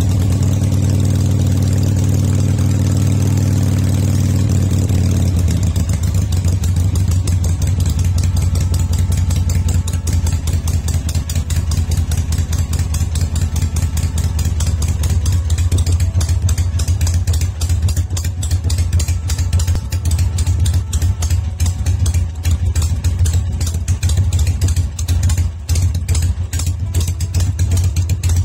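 1970 Harley-Davidson XLH 900 Ironhead Sportster's V-twin running cold, freshly retimed with new points. It runs steadily for the first few seconds, then settles into an uneven, pulsing idle.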